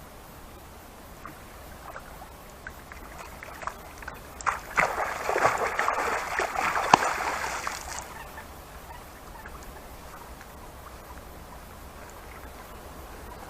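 Water splashing and sloshing for about three seconds, starting about four and a half seconds in, with a sharp slap near the end of it.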